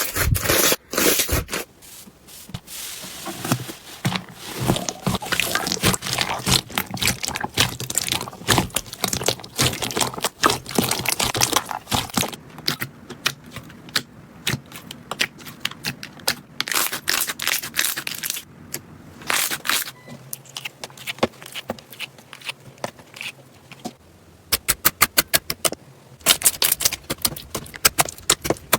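Slime being handled: a dense run of crackling and popping clicks mixed with scraping. Near the end comes a fast, evenly spaced series of pops.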